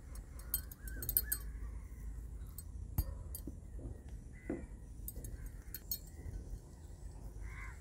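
Metal bangles clinking lightly and irregularly on the wrists as oiled hands roll and shape a ball of parota dough, with one sharper click about three seconds in.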